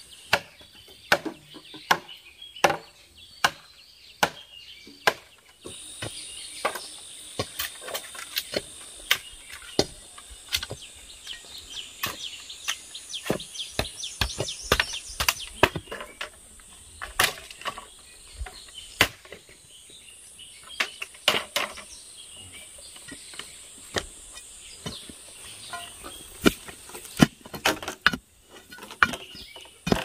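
Irregular sharp chops and knocks on bamboo, struck many times at an uneven pace. A steady high insect drone sets in about six seconds in.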